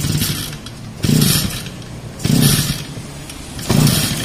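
Tanika brush cutter engine running at idle and revved in four short throttle bursts, about a second apart. It is running on carburettor cleaner sprayed into the intake; the engine will only run briefly this way, a sign the carburettor needs opening and cleaning.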